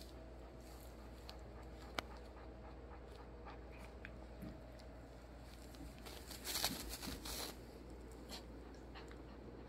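Faint rustling from a pregnant Yorkshire terrier in labor shifting on a puppy pad while a hand strokes her belly, with a sharp click about two seconds in and a louder patch of rustling between six and seven and a half seconds.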